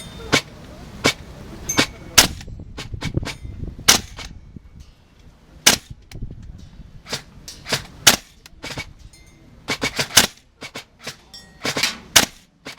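Gas blowback airsoft rifle firing single shots at an irregular pace, some in quick pairs. Wind rumbles on the microphone during the first few seconds.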